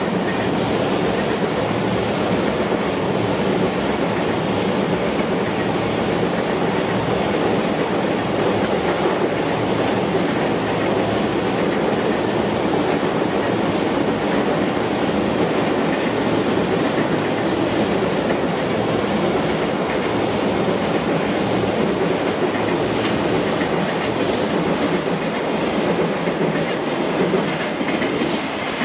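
A long freight train of container wagons passing steadily, its wheels running on the rails with a continuous loud clatter.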